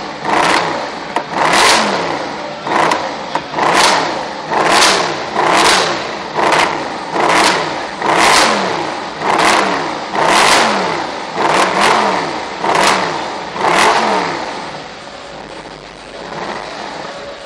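Mercedes SLS AMG's 6.2-litre V8 free-revved in quick throttle blips, about one a second, each rev rising and falling in pitch, then dropping back to idle near the end.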